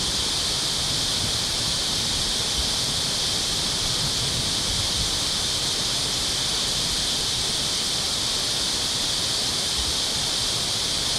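Steady, even hiss of water, with no breaks or changes.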